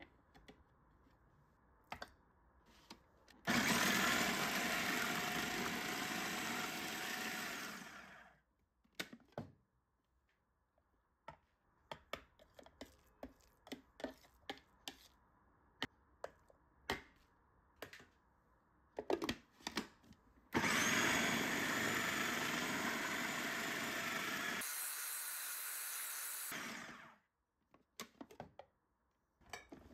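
Food processor motor running twice, for about five and six seconds, each time starting suddenly and winding down as it stops, while it chops a chicken nugget mixture. Scattered clicks and taps come in between.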